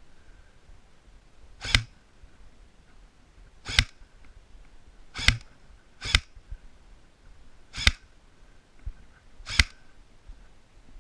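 Airsoft gun firing six single shots, each a sharp crack, spaced irregularly one to two seconds apart.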